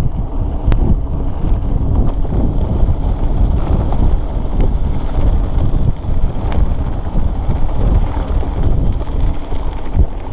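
Wind buffeting the microphone of a handlebar-mounted camera on a bicycle riding a gravel dirt road, with the tyres crunching on the gravel underneath. A few small clicks and rattles from the bike come through, the clearest under a second in.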